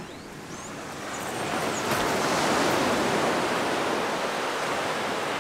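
Ocean surf on a beach: the rush of a breaking wave swells up about a second in, then washes on steadily.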